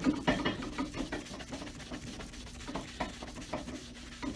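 Rapid back-and-forth hand-buffing strokes rubbing over a freshly waxed leather shoe sole to shine it. The strokes are quick and dense at first, then grow fainter and sparser after about a second and a half.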